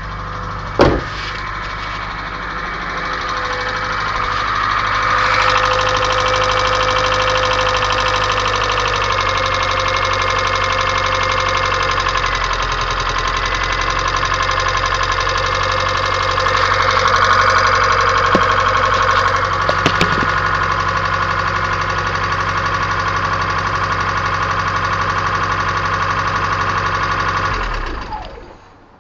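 1994 Kia Sephia engine running with a steady ticking noise, and a sharp click about a second in. The sound cuts off near the end.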